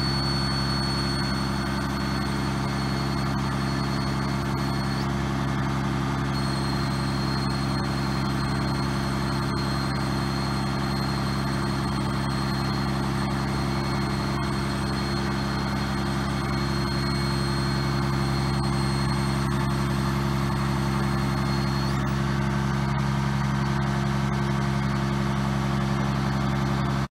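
Caterpillar 3126 turbo-diesel of an M1084A1 cargo truck idling steadily. A thin high whine rides over it, breaks off briefly about five seconds in and stops near the end.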